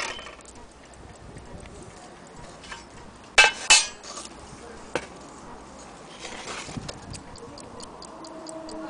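Vintage Kienzle quartz mantle clock ticking steadily, its ticks running on evenly from about seven seconds in. Two sharp clacks about three and a half seconds in, with a smaller click and a brief rustle after.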